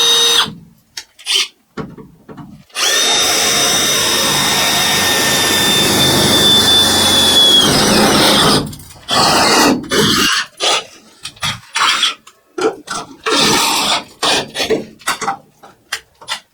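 Power drill with a step bit drilling through the van's sheet-metal panel: a short burst, then one long steady run of about five seconds with a high whine, then a string of short stop-start bursts.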